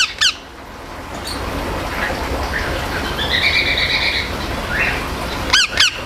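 Indian ringneck parakeet calling: two short shrill calls at the start, a longer buzzy call in the middle, and two more shrill calls near the end.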